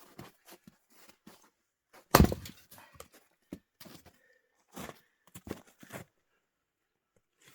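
Firewood being split with an axe: one heavy strike about two seconds in, with lighter knocks and crunches of wood around it.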